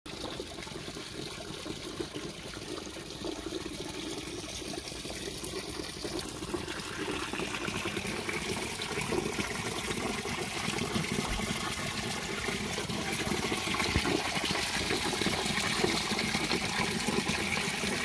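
Steady rush of running water, slowly growing louder.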